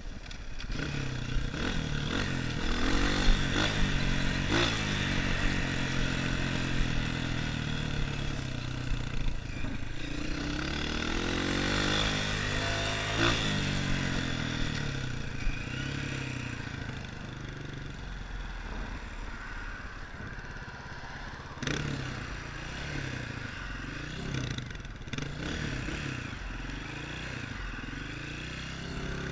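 Dirt bike engine revving up and down as the bike is ridden over a rough trail, its pitch rising and falling repeatedly. In the second half it runs lower and quieter, with a few sharp knocks from the bike.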